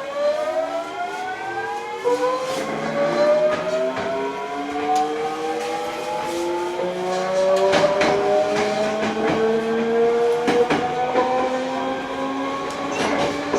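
Hankyu 8000 series train's Toshiba GTO-VVVF inverter and traction motors whining under acceleration: several tones rise steadily in pitch together, with a step in the lower tones about seven seconds in. Wheels clack over rail joints from about eight seconds in.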